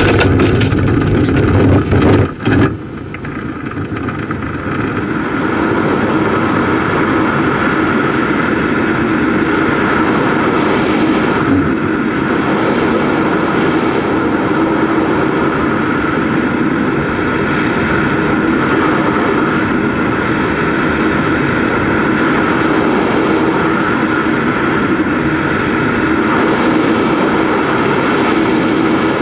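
Engine of a 3 m Bellanca model tow plane running steadily, heard from the model glider on the tow rope behind it, with air rushing over the glider. In the first few seconds, rough knocks and rumble from the takeoff roll over grass.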